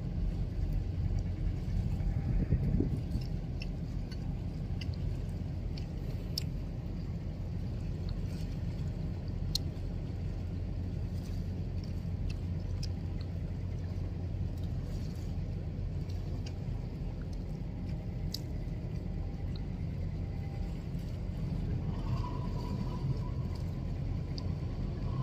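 Steady low rumble of ship engines, with scattered faint clicks. A steady high tone comes in near the end.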